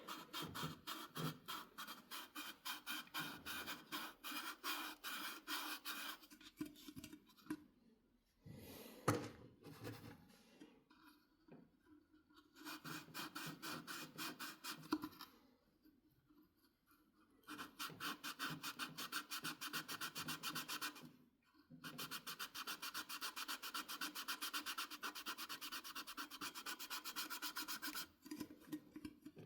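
A scouring pad scrubbing the stainless-steel rim of an electric kettle to get off mineral scale. It goes in fast, even back-and-forth strokes, in several runs with short pauses between.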